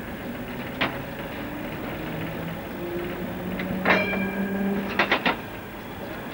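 Munich M-type tramcar running along the track, heard from the cab: a steady rumble and low hum. There is a sharp knock about a second in, a louder clank with a brief ring past halfway, and three quick clicks shortly after.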